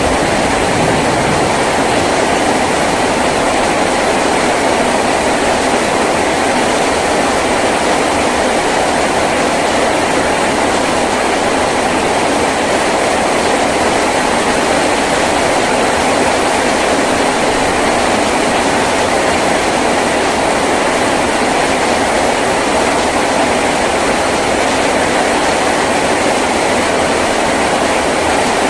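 Heavy rain drumming steadily on a tin roof, a dense, unbroken roar that stays at the same level throughout.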